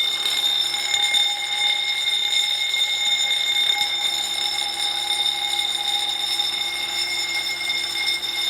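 Wheelock MB fire alarm bell ringing continuously and loud, a steady metallic ring with no breaks, set off by a manual pull station.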